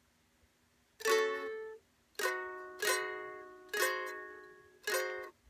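Ukulele strummed one chord at a time: five strums about a second apart, starting about a second in. The first and last are cut short by damping and the middle three ring out. These are the slow, deliberate chord changes of a beginner practising the move from G♯7 to the hard-to-fret E chord.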